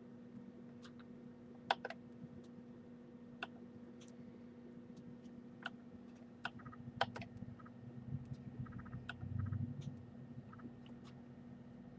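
Faint, scattered computer mouse and keyboard clicks, some in quick pairs or short runs, over a steady low hum.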